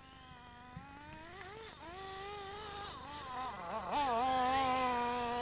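Two-stroke OS Max glow engine of a 1:8 scale Graupner Impuls 3000 nitro buggy buzzing at high revs, its pitch rising and dipping with the throttle and growing louder as the buggy nears and slides through the sand.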